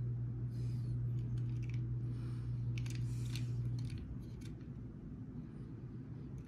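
Light clicks and scrapes of fingers handling a small die-cast toy car, over a steady low hum that cuts off suddenly about four seconds in.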